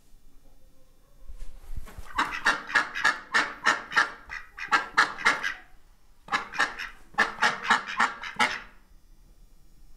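White domestic ducks quacking in two quick runs of repeated calls, about four a second, the first run starting about two seconds in and the second following a brief pause.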